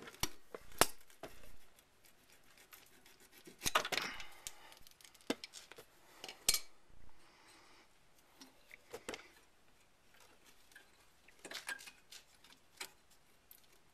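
Pliers clicking and scraping against a steel brake-line retaining clip at the rear strut's bracket as the clip is worked out: a scattered series of sharp metallic clicks and clinks, busiest about four seconds in and again near the end, with quieter gaps between.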